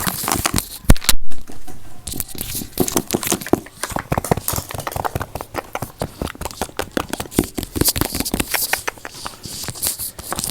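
Close-miked crackling, scratching and rubbing right at the microphone, an ASMR ear-cleaning trigger. Dense irregular clicks, loudest about a second in, with a brief cut-out just after.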